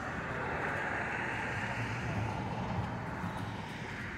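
Steady outdoor background noise of vehicles running nearby, an even rushing sound over a faint low hum.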